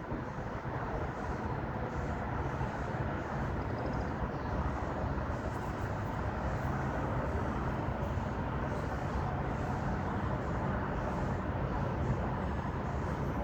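Steady noise of road traffic, even and unchanging throughout.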